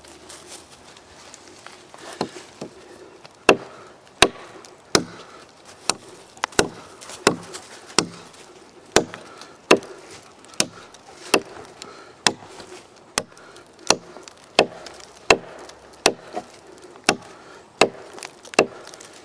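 Gränsfors Bruks Mini Hatchet chopping into a log: a steady run of sharp strikes, about one every 0.7 seconds, beginning about two seconds in.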